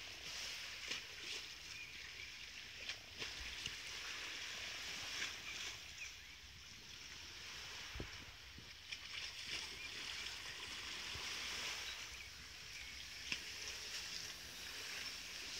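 Small waves lapping and clicking at the lake's edge, over a steady outdoor hiss.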